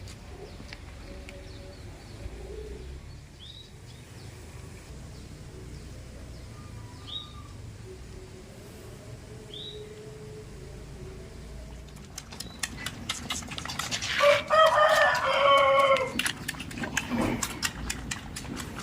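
A rooster flapping its wings, then crowing once loudly for about two seconds, a little past the middle. Faint bird chirps come before it.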